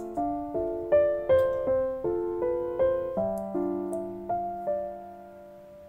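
Soft piano background music: a gentle melody of single notes over held lower notes, growing gradually quieter toward the end.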